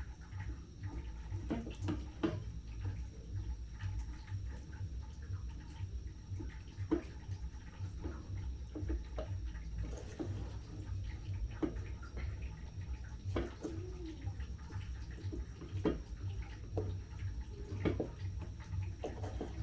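Ugali being stirred and pressed against a metal cooking pot (sufuria): irregular knocks and scrapes of the stirring stick against the pot, over a steady low hum.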